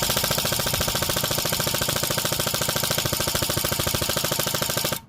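Airsoft gun firing one continuous fully automatic burst, a rapid even rattle of shots that cuts off suddenly about five seconds in as the magazine runs empty.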